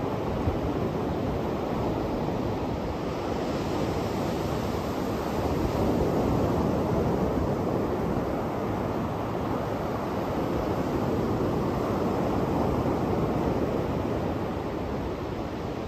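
Surf breaking and washing up a sandy beach, a steady rush of waves that swells a little twice as bigger waves come in.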